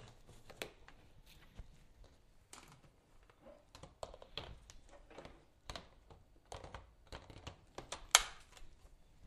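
Plastic hoses, tubes and parts of a Vax upright vacuum cleaner being fitted back together by hand: scattered small clicks and knocks, with one sharper click near the end.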